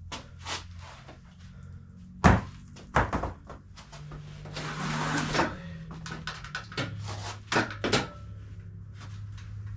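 Gym equipment being handled: several sharp knocks and thuds, the loudest about two seconds in, with a rustle in the middle, over a steady low hum.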